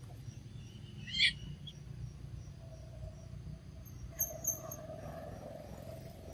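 Short high-pitched animal squeaks: one sharp squeak about a second in, then two quick very high chirps a little after four seconds, over a low steady background rumble and a faint steady hum.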